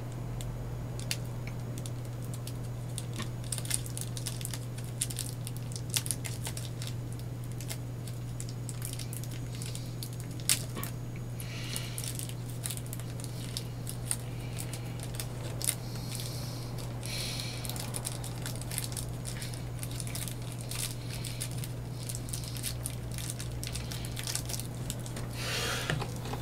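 Hands handling a small plastic figurine and its parts: scattered light clicks and taps, with brief rustling now and then, over a steady low hum.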